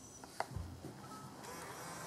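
Faint click of a laptop power button with a short low knock, then a faint thin whine as the Alienware M14x laptop powers on.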